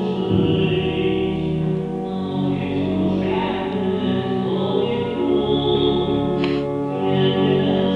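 Church hymn sung by a choir or congregation over organ accompaniment, in long held chords. It follows the priest's call on the Holy Spirit, the point in the Catholic wedding rite where a hymn to the Holy Spirit is sung before the vows.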